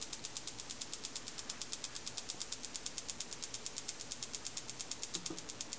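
Homemade Franklin electrostatic motor of ping-pong balls on drinking straws spinning on high voltage from a 25 kV multiplier, making a rapid, even, high-pitched ticking of about ten clicks a second.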